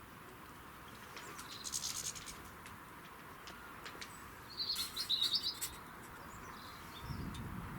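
Small songbirds chirping and twittering in two short spells, about a second and a half in and again around five seconds in, over faint outdoor background noise.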